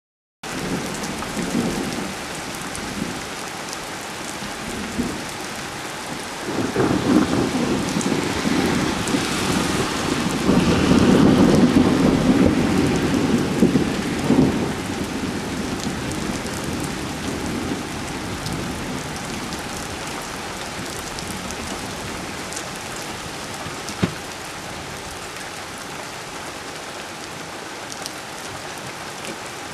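Steady rain during a thunderstorm, with a long rolling rumble of thunder that builds about six seconds in, is loudest around eleven to twelve seconds and dies away a few seconds later. A single sharp click near the end.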